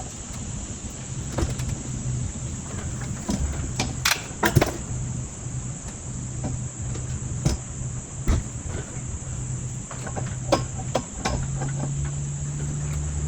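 Irregular knocks and clicks, a dozen or so scattered through, over a steady high-pitched buzz and a low hum that rises a little near the end.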